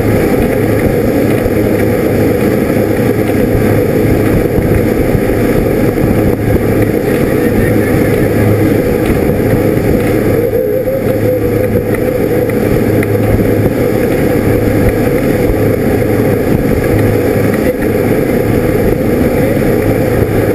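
Motorboat running steadily at speed: a constant low engine drone mixed with the rush of water and wind.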